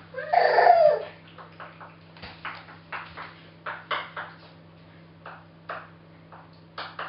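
A baby's short whining vocalisation in the first second, then a run of light slaps of small bare hands on a laminate floor, about two or three a second, as the baby belly-crawls, over a steady low hum.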